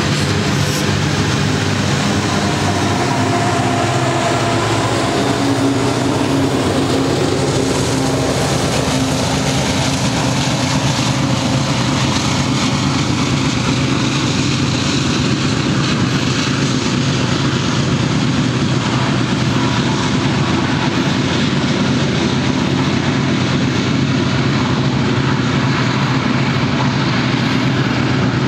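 Loaded coal train's rear distributed-power diesel locomotives going by and pulling away, their engines running with a steady drone over the rumble of the coal cars' wheels on the rails. The engine pitch drops in the first third as the locomotives pass.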